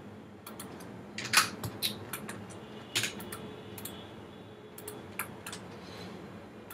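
Irregular clicks of a computer keyboard and mouse being worked, a dozen or so scattered strokes with two louder ones about one and a half and three seconds in, over a low steady hum.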